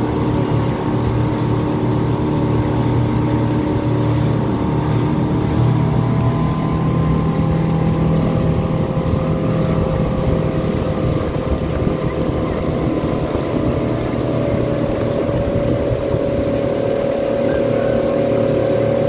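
Motorboat engine running steadily at towing speed, pulling tubes through the water, with a rush of water and wind. Its engine tones shift slightly in pitch a few times.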